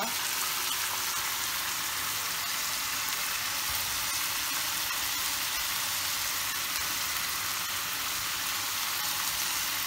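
Steady frying sizzle from a pan of minced meat with peppers and tomato, while raw matchstick potatoes, still damp after draining, are dropped by hand into a second pan of warm oil. The sizzle is an even hiss that does not change.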